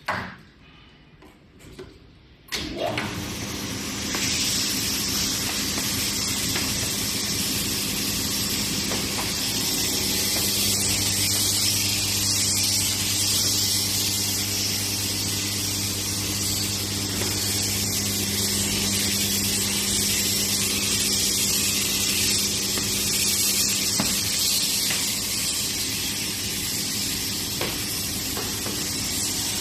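A car-wash high-pressure water pump starts suddenly about two and a half seconds in and runs steadily, with the loud hiss of the water jet spraying over a steady motor hum.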